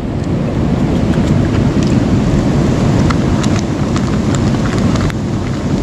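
Steady rush of river water, with scattered light clicks and crinkles from a plastic bag of pellet bait being wetted and squeezed by hand.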